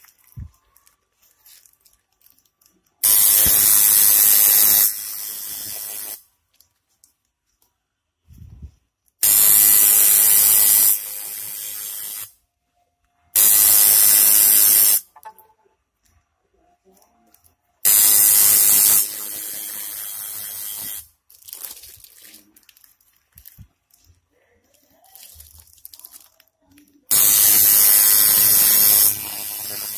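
Tattoo machine buzzing in five separate runs. Each run is loud for about two seconds, then drops to a lower level for about a second before stopping, with quiet pauses between runs.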